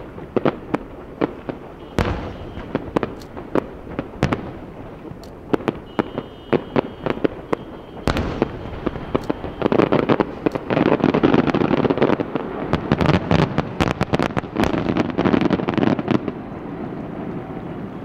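Aerial firework shells bursting in quick succession: a run of sharp bangs that thickens, about eight seconds in, into a dense crackling barrage, then thins out near the end.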